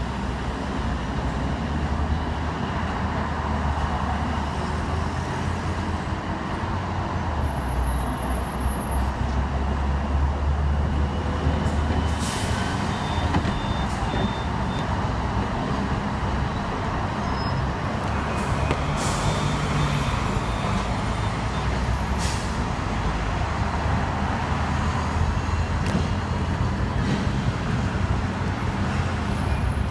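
Hong Kong double-decker electric tram running along its street track, heard from on board: a steady low drone of the motors and wheels on the rails, with a few brief rattles and surrounding road traffic.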